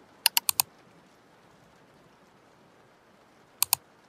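Computer clicking: four quick clicks about a quarter second in, then two more near the end, over a faint steady hiss.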